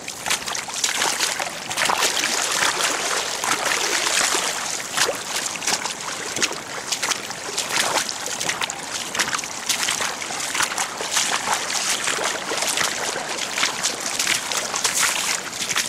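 Shallow floodwater rushing across a yard and driveway: a steady rushing hiss broken by many small splashes.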